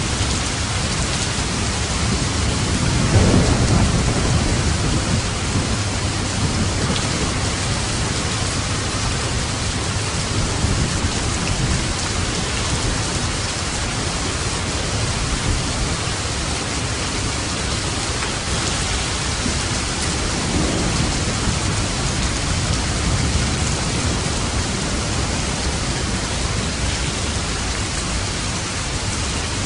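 Steady rain falling, with low rumbles of thunder, the loudest about three seconds in and a second one about twenty seconds in.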